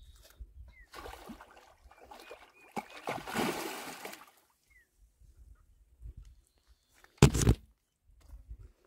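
A hooked rohu thrashing and splashing at the water's surface while being played on a rod, for about three seconds, loudest around three to four seconds in. Near the end, a single short, loud knock.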